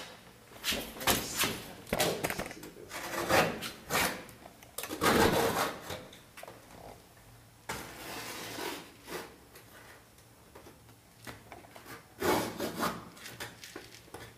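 A brush or tool rubbing and scraping over a painted canvas in irregular strokes, several of them louder, with a quick run of strokes near the end.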